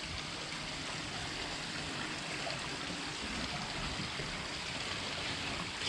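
Steady, even hiss, much like running water, with no single event standing out.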